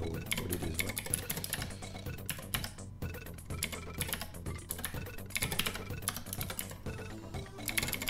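Typing on a computer keyboard, quick runs of keystrokes with short pauses between them, over background music.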